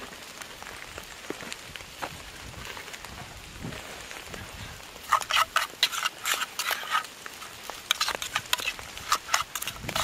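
Steady rain, then from about five seconds in a close run of crackly clicks from fingers mixing chopped hedge garlic leaves with vinegar and sugar in a small steel bowl.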